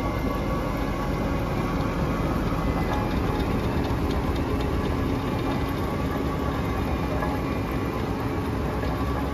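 Bobcat T870 tracked skid steer's diesel engine running steadily under load while its CONETEKS 2.13SF forestry rotor grinds stumps, roots and soil. A few sharp ticks come through around the middle.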